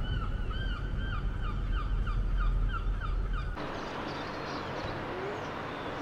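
Juvenile gull giving a rapid series of short, high whistling cries, about three a second, over a low rumble. The sound cuts off about three and a half seconds in, leaving a steady, even hiss.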